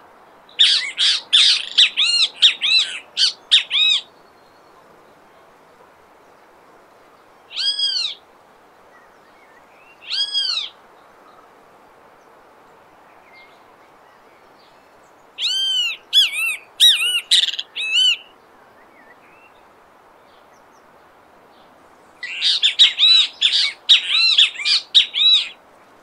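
Great kiskadee (bem-te-vi) calling in runs of fast, repeated notes, each rising and falling in pitch. A run comes near the start, single calls about 8 and 10 seconds in, another run around the middle, and a long fast run near the end, all over a faint steady hiss.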